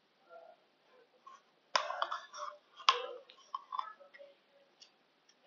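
Thin plastic Yoplait yogurt cup being handled, giving two sharp clicks about a second apart and smaller crackling ticks in between and after.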